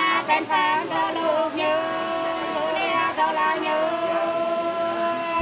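Sli, the Nùng folk song of northern Vietnam, sung unaccompanied in long held, wavering notes with slow slides between them.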